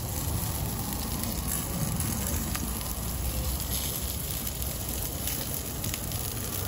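Bacon-wrapped hot dogs sizzling and crackling on a grill grate: a steady hiss with fine pops, over a low rumble.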